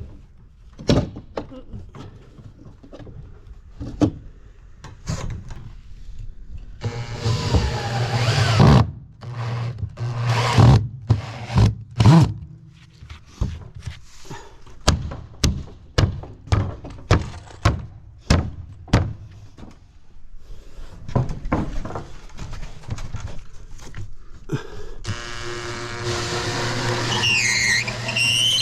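A series of sharp knocks, about one a second through the middle stretch. Music comes in for several seconds and again near the end.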